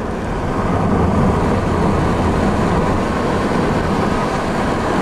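Steady road noise from inside a moving Subaru: a low rumble of tyres and engine, even throughout.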